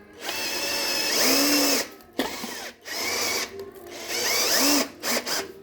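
Electric drill driving a sheet-metal cutting adapter, run in about five short bursts, its motor whining up and back down with each trigger pull. The cutter is jammed against a rib of 0.75 mm steel decking and can't climb over it.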